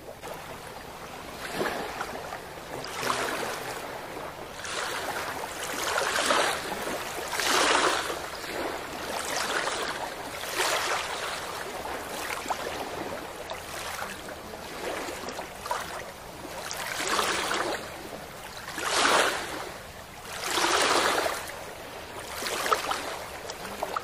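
Small river waves lapping onto a sand-and-pebble shore, each one washing in and fading, one every second or two.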